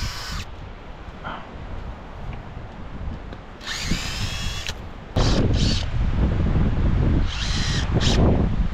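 Wind buffeting the microphone as a heavy low rumble that sets in suddenly a little past halfway, with two short bursts of a small power tool's motor whining, one in the middle and one near the end.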